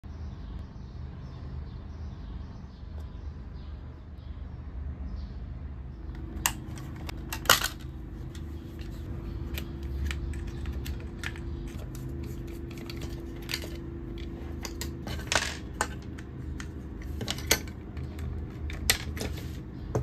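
Plastic handling noise from a Genius gamepad being taken apart on a wooden table: scattered sharp clicks and taps of its plastic shell parts and small screws, starting about six seconds in, the loudest about seven and a half seconds in. A steady low hum runs underneath.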